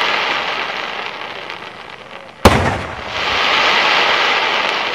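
Aerial firework shells: the dense crackling of a gold glittering burst fades, then a single sharp shell burst goes off about two and a half seconds in, followed by a fresh swell of crackling.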